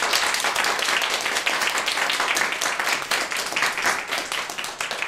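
Small audience applauding, a dense patter of many hands clapping that eases slightly near the end.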